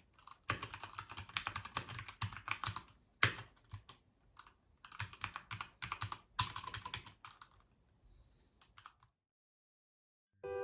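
Typing on a Keychron K2 V2 wireless mechanical keyboard: bursts of rapid key clicks with short pauses, one stroke louder than the rest about three seconds in. The typing stops about nine seconds in.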